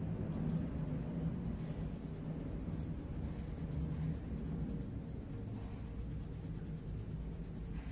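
Coloured pencil shading on paper, a steady rubbing of the pencil against the sheet as an area is coloured in.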